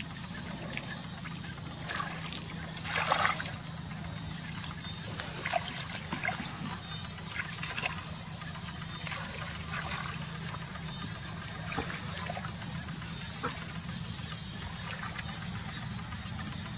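Water trickling and splashing, with scattered short splashes a few seconds apart, as water is stirred and poured while fishing with a net.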